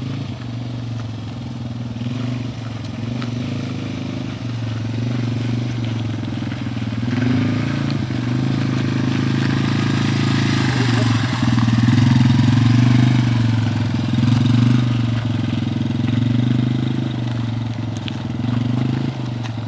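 Yamaha TT-R250 dirt bike's single-cylinder four-stroke engine running steadily at low revs as it pulls along, growing louder through the middle and easing off slightly near the end.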